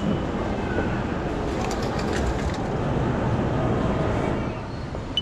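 Steady background noise of a railway station concourse, with a brief high beep near the end.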